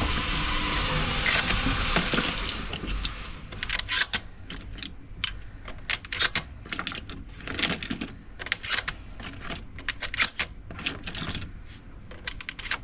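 Shotgun shells being handled and pushed one by one into the tube magazine of a Beretta 1301 Tactical, a run of irregular metallic clicks and small knocks. A brief rushing noise comes first, for about two seconds.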